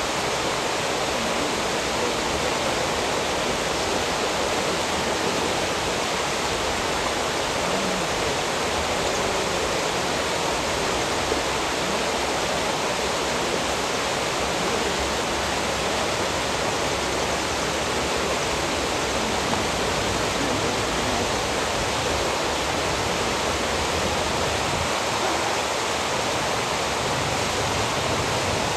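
Churning water rushing steadily, an even roar of turbulent flow with no breaks.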